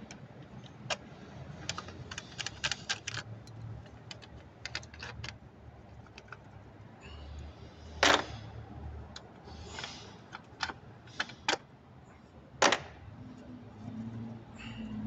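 Scattered sharp clicks and light metallic taps from hand tools and parts being handled in a car's engine bay, a quick run of clicks early, then two louder knocks in the second half.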